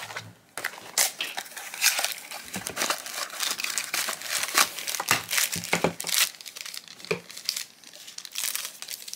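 Crinkling and rustling of blind-box packaging handled by hand: a cardboard box and a shiny black pouch, the pouch cut open with scissors near the end, in many irregular crackles.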